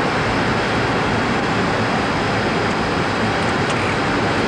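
Steady rushing cockpit noise of airflow and engines on a Boeing 747-200's flight deck on final approach.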